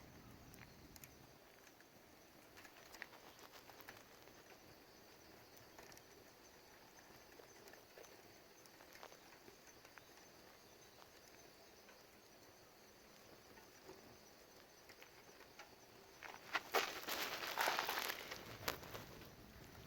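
Faint crackling of a wood fire in a fire can, with scattered small pops. Near the end comes a louder, brief cluster of knocks and rustling.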